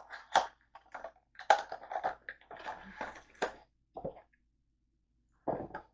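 Packaging of a pet shaver kit being handled and unpacked: irregular crinkling and rustling with short sharp crackles, busiest in the middle and with one last burst near the end.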